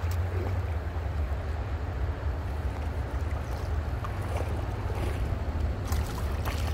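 Rushing water of river rapids, a steady noise, with wind rumbling on the microphone. A couple of faint ticks about six seconds in.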